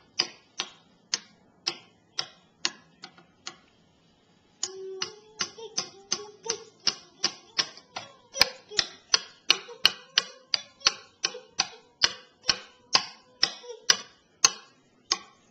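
A steady rhythm of sharp clicks, about two a second. The clicks stop about three and a half seconds in and start again a second later, a little faster, with a faint steady tone behind them.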